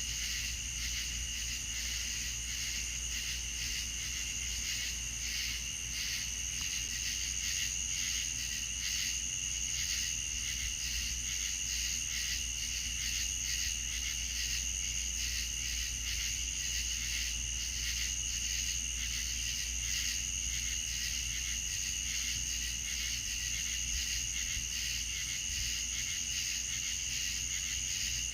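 Night-time insect chorus: a steady high-pitched trill that pulses rapidly and evenly throughout, with a low steady hum underneath.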